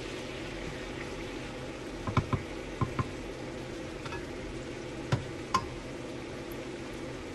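Pork adobo cooking in a pan as its soy-sauce and water liquid reduces: a steady hiss of simmering, broken by six sharp clinks against the pan in pairs.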